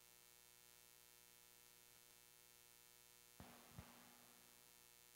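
Near silence with a faint steady electrical hum; two faint thumps come a little past three seconds in.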